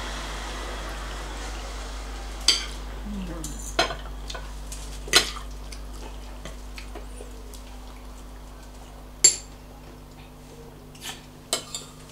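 Metal forks and spoons clinking and scraping against plates and a frying pan of stew while people eat, a sharp clink every second or two over a faint steady hiss that slowly fades.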